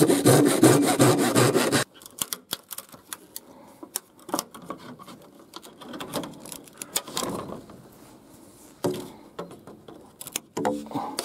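Hand saw cutting with rapid back-and-forth strokes for the first two seconds. Then tin snips make scattered clicks and short snips as they trim a corrugated plastic roofing sheet. Sawing starts again just before the end.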